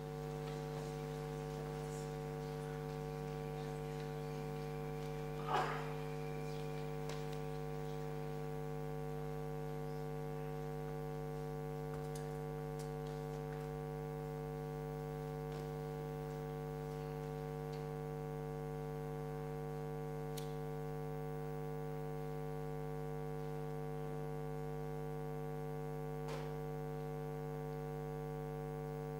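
Steady electrical hum with a buzzy stack of overtones, unchanging throughout. About five and a half seconds in, a brief louder noise cuts across it, and a few faint ticks follow later.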